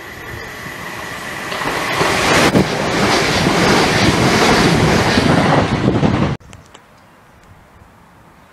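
Passenger multiple-unit train running through the station at speed: a rush of wheel and air noise that builds as it approaches and is loudest as the carriages pass. It cuts off abruptly about six seconds in, leaving faint background.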